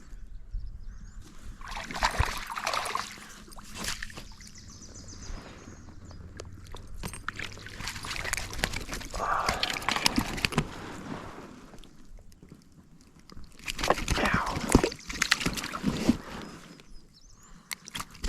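Water splashing and sloshing in three bouts as a hooked trout is brought to hand and handled at the surface.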